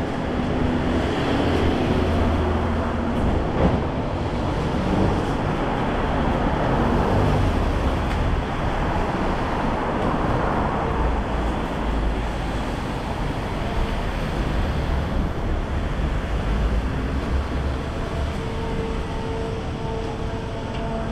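Downtown street traffic: a steady wash of passing vehicles' engines and tyres with a deep rumble, swelling and easing as vehicles go by.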